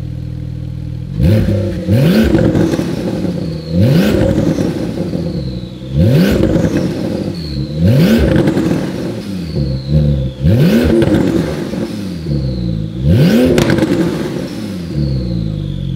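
The twin-turbo 3.8-litre flat-six of a 2019 Porsche 991.2 GT2 RS, fitted with a Fi catback exhaust, catless downpipes and an ECU flash tune, idles and is then blipped six times. The blips come about every two and a half seconds, each revving up sharply and dropping back to idle. A high whistle falls away after each blip.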